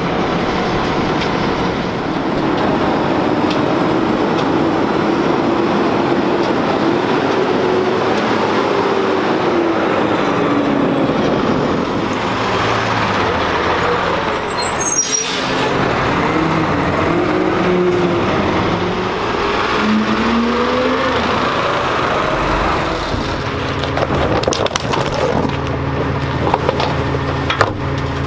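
Diesel garbage truck engines running. An engine note rises and falls in pitch as a refuse truck drives close by. From about two-thirds of the way in, a Peterbilt Heil rear loader idles with a steady low hum while a trash can knocks against its hopper near the end.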